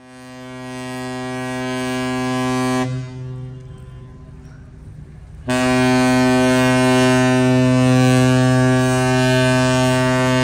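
Ship's horn sounding two long, deep blasts rich in overtones. The first swells up and breaks off about three seconds in, leaving a fainter tail. The second starts abruptly about five and a half seconds in and is held steadily.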